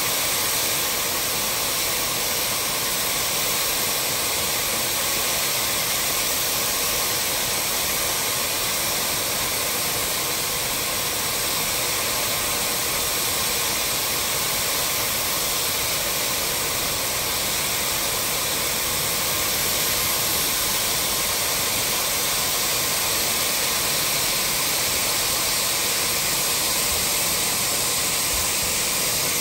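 Steady rushing hiss from riding behind the 1887 Lancashire & Yorkshire Railway Class 25 steam locomotive 52044, loud and even throughout.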